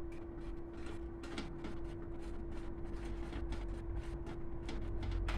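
Irregular light clicks and taps of hands working on a diesel heater's fuel line and pump, over a steady hum.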